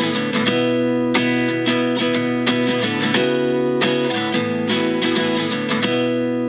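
Background music: an acoustic guitar strumming chords at a steady rhythm.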